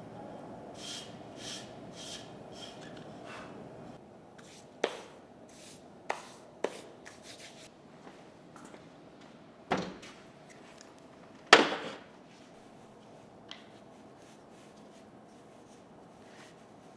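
Wood being worked by hand: a few seconds of scratchy rubbing strokes, then a handful of sharp knocks of a wooden board being set down or struck, the loudest about halfway through.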